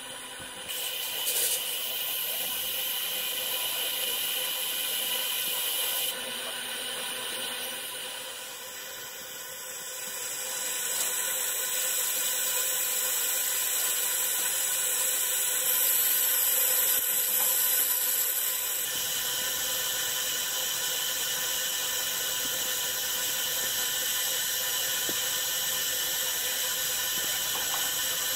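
100 W MOPA fiber laser engraving aluminum: a steady high-pitched hiss overlaid with thin whining tones. The level shifts abruptly a few times, dipping for a few seconds about a third of the way in and then rising again.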